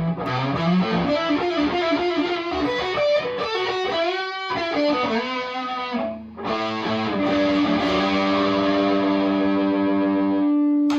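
Distorted electric guitar, a Chibson Les Paul Custom played through a Marshall DSL40 combo amp: a run of quick notes and riffs, then a chord struck about seven seconds in and left to ring before it is muted near the end.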